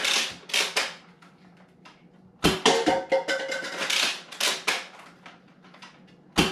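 Nerf Longstrike spring-powered dart blaster firing: a sharp shot about two and a half seconds in, followed by a couple of seconds of rattling, clattering clicks, and another sharp shot near the end.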